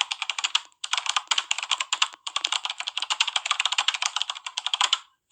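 Computer-keyboard typing sound effect: rapid, dense key clicks in runs broken by brief pauses, the longest run lasting close to three seconds.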